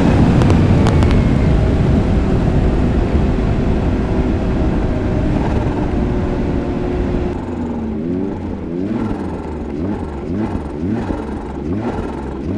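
The tuned 2022 Ski-Doo Mach Z's 900 ACE Turbo R three-cylinder turbocharged four-stroke running hard just after a full-throttle run, its sound slowly easing. From about halfway through, the engine note rises and falls in short repeated swells, about once a second.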